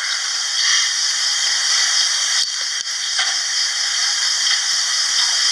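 A loud, steady hiss with no speech, the background noise of a poor-quality recording, with a few faint ticks.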